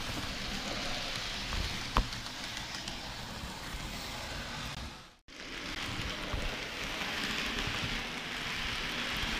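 Model railway train running on the track: a steady rolling rattle of wheels on the rails, with one sharp click about two seconds in. The sound cuts out for a moment just past the middle, then carries on.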